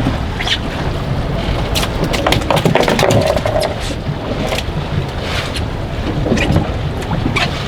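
Strong gusty wind buffeting the microphone on a small open boat, with frequent short splashes of choppy water slapping against the hull.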